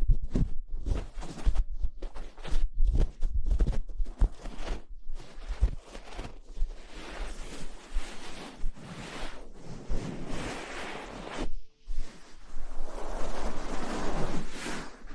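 Close-miked ASMR rustling and scrubbing against the microphone: quick brushing strokes with low thumps, turning into a denser, continuous scrubbing rustle from about six seconds in.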